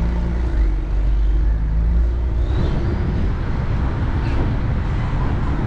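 A car driving slowly along a town street: a steady low rumble of tyres and engine with traffic around it, plus a steady low hum that stops about two and a half seconds in.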